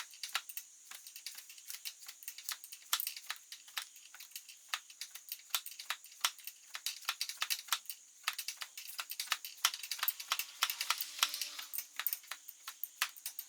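Irregular series of light, sharp clicks and taps, a few to several a second with some quicker runs, from hand work on the car.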